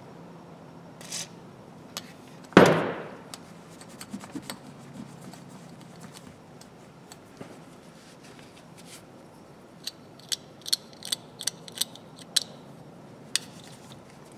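Handling of a hand ratchet, with one loud knock about two and a half seconds in. Near the end comes a run of sharp clicks, several a second: the ratchet's pawl clicking as the freshly cleaned and lubricated ratchet is worked back and forth.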